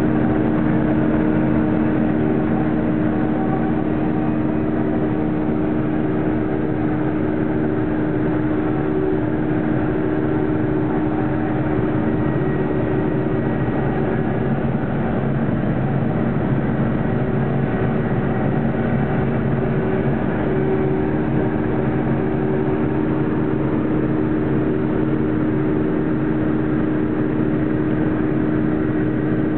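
Combine harvester running steadily under load while cutting winter wheat: an even engine and machinery hum that holds one pitch and level throughout.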